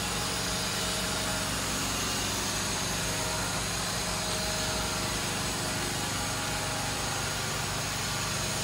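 Hurco VMX50 CNC vertical machining center running: a steady mechanical hum with several steady tones over a constant hiss.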